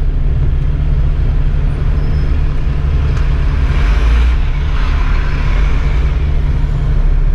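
Bus engine running with a steady low drone, heard from inside the driver's cab as the bus moves slowly in traffic. About three seconds in, a rushing noise swells and fades over a few seconds as another bus passes close alongside.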